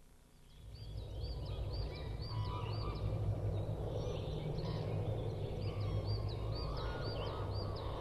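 Outdoor ambience of birds chirping, short high calls repeated several times a second, over a steady low rumble. It fades in about half a second in.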